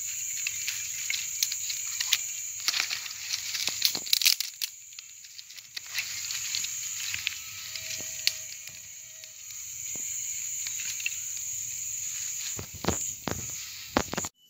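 Dry twigs and kindling sticks rustling, clicking and snapping as they are handled and laid onto a small campfire, in irregular bursts that are busiest a few seconds in and again near the end.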